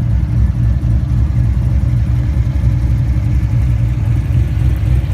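A 1990 Nissan 240SX's 2.4-litre four-cylinder engine running steadily with an even low rumble.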